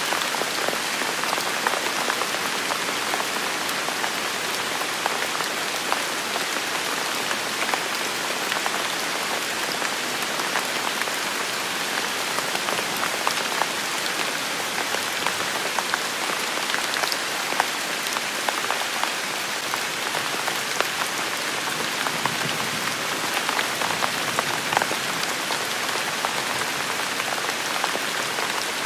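Steady rain falling on a surface, an even hiss dotted with many small, sharp drop ticks.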